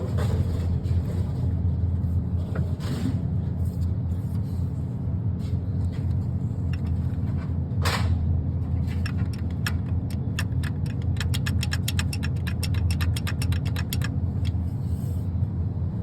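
GM engine idling steadily, with a fast, light ticking of about six ticks a second coming in for several seconds past the middle: the lifter tick being checked for.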